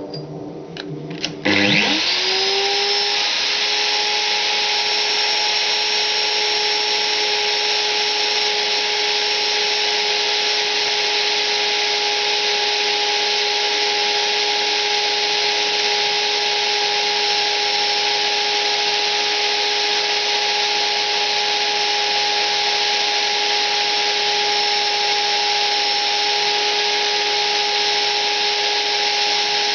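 Small high-speed electric motor of a rose-engine lathe setup switched on with a click about a second and a half in. Its whine rises quickly and then holds at one steady pitch over a loud, even hiss.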